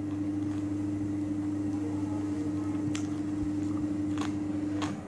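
A steady machine hum on one constant pitch with a low drone beneath, switching off abruptly near the end, with a few sharp crunches of cucumber being chewed over it in the second half.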